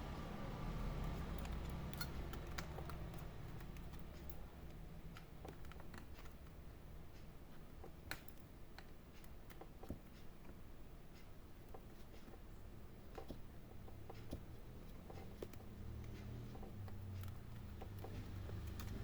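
Scattered light clicks and taps of small laptop parts being handled and fitted into place during reassembly, over a low steady hum.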